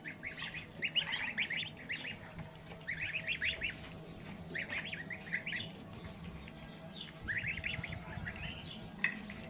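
Goslings and ducklings peeping: quick runs of high calls, one run after another about every second or so.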